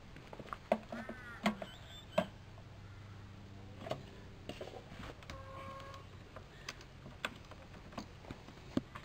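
Scattered clicks and knocks of a plastic jerry can and funnel being handled while petrol is poured into a lawn mower's fuel tank.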